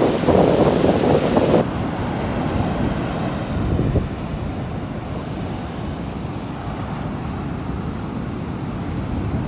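Sea waves washing ashore with wind buffeting the microphone. The sound changes abruptly about one and a half seconds in, becoming quieter and duller.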